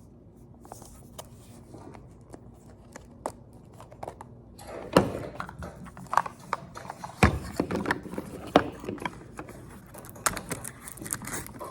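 Plastic toy packaging being handled and opened by hand: crinkling with many sharp clicks and taps. It is sparse at first and grows busier and louder about four and a half seconds in.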